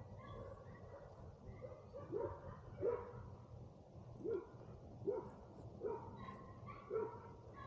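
A dog barking over and over, a short bark roughly once a second, over a low steady hum.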